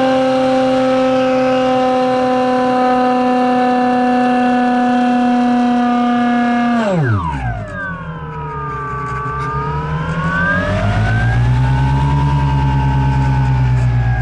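EasyStar II RC plane's electric pusher motor and propeller whining at a steady high pitch, then dropping sharply about seven seconds in as the throttle is pulled back. The pitch then sweeps slowly down and back up.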